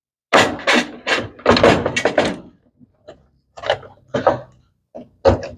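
Needle-nose pliers and tools clattering and knocking against the washing machine's plastic and metal parts while a stuck fastener is being worked loose: a dense run of knocks and rattles in the first two seconds, then a few lighter taps.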